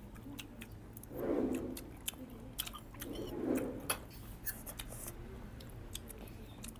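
Close-miked chewing and mouth sounds while eating pork ribs: a run of small sharp clicks and smacks, with two louder muffled stretches about a second in and about three seconds in.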